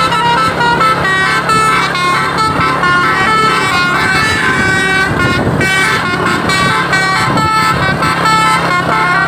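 Multi-tone Basuri 'telolet' bus horn playing a fast, continuous melody of short stepped notes over a steady low drone, with a brief break about five and a half seconds in.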